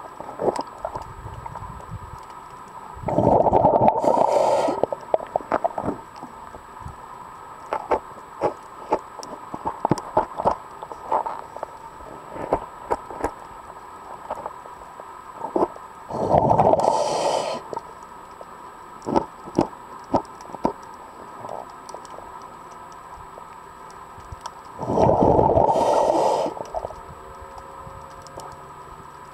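Underwater recording of a diver breathing through a regulator: three long rushes of exhaled bubbles, about ten seconds apart, each with a short hiss. Scattered sharp clicks fill the gaps between breaths.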